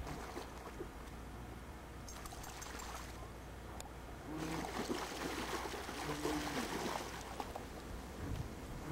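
Shallow lake water splashing and trickling as a dog wades through it, getting louder about halfway through, with two short low tones in the middle.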